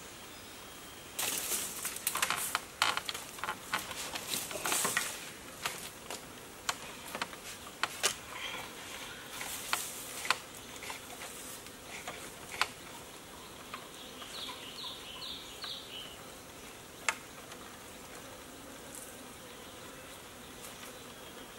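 Bamboo poles being handled and knocked against each other, a dense run of rustling and sharp clicks for the first few seconds, then scattered single knocks. Four quick high chirps come in near the middle, over a faint steady insect buzz.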